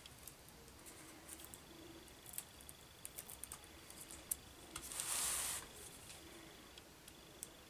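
Craft knife trimming tissue paper around the curved edge of a balsa tailplane on a cutting mat: faint, scattered ticks and scratches of the blade. About five seconds in comes a brief sliding rustle as the cutting mat is turned.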